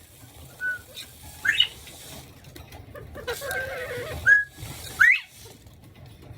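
Quail calling: a few short, whistled chirps, several rising sharply in pitch, the loudest about a second and a half in and twice more around four and five seconds in.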